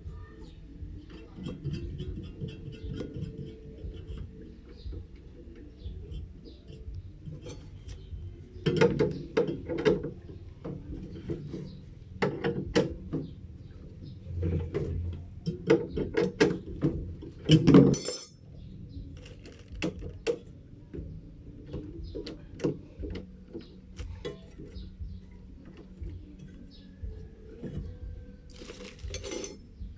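Irregular clinks and knocks of tools on metal parts, with louder clusters of clatter about nine, twelve, sixteen and eighteen seconds in, over a low steady hum.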